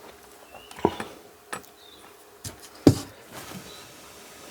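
Several sharp clicks and knocks from handling a hot glue gun and the small workpiece, the loudest near three seconds in.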